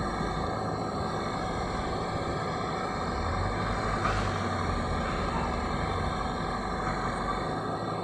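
Terex TLB 740S backhoe loader's diesel engine running steadily while the backhoe arm works, its note getting stronger for a few seconds midway, with a brief rush of noise about halfway through.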